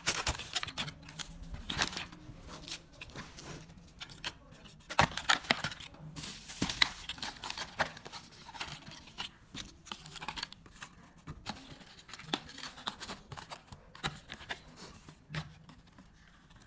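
Paper and cardboard packaging rustling and crinkling as a phone box and its inserts are handled and packed back up, with irregular taps and scrapes, loudest around five to seven seconds in.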